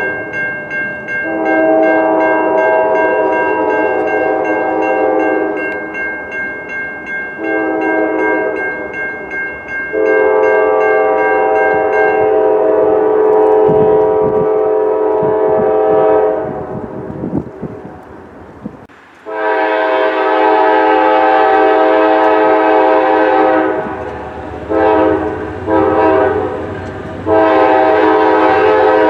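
Locomotive air horn sounding a chord in a series of long and short blasts. In the middle there is a break of a few seconds in which only rail wheel clatter is heard, then the blasts resume, ending in a long one.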